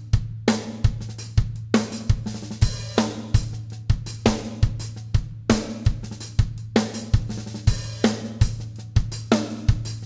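Drum kit playing a slow odd-time groove: bass drum and snare looping a 7/16 pattern while the hi-hat runs in 7/4, with snare ghost notes and open hi-hats.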